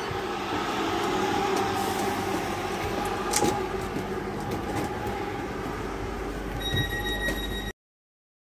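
An electric train running close by: a steady rumble with drawn-out tones, cutting off suddenly near the end.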